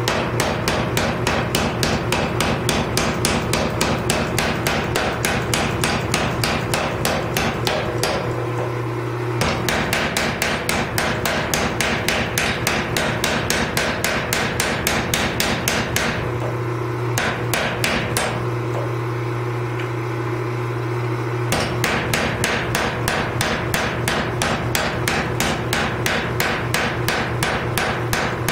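Power hammer pounding a glowing Damascus billet with rapid, even blows. The blows stop twice, for about a second near the middle and for about five seconds in the second half, leaving the hammer's motor humming steadily.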